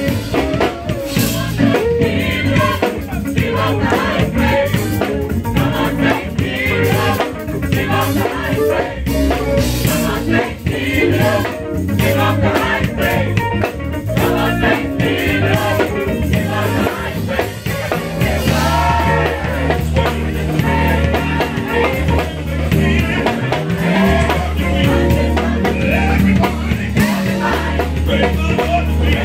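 Gospel choir singing in full voice with a live band backing them, drums and guitar among it.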